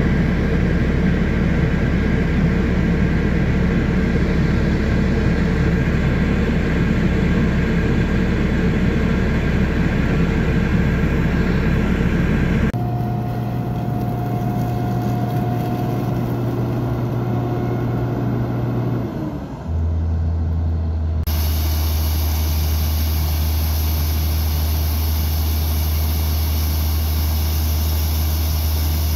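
Heavy diesel farm-vehicle engines running steadily, in several spliced stretches. Near the middle one engine's pitch drops briefly before a steadier, deeper engine sound takes over.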